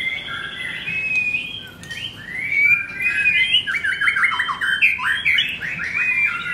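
Male white-rumped shama singing a loud, varied song of whistled phrases, with a quick run of rapid notes a little past the middle.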